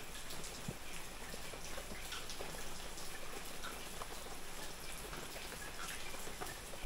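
Faint, even outdoor background noise with scattered small ticks.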